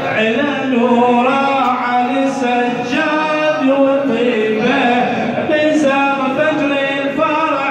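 A male radood singing an Arabic madih praise chant, drawing out long, gliding notes.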